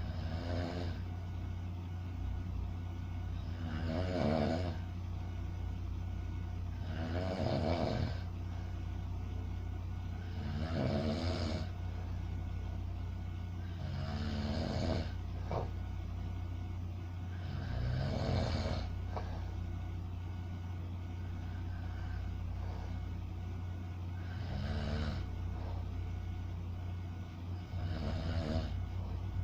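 A sleeping person snoring: a rattling snore on each breath, about every three to four seconds, over a steady low hum.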